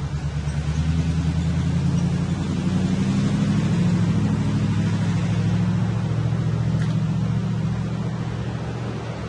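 A heavy vehicle's engine running, a low hum that grows louder over the first four seconds and then slowly dies down.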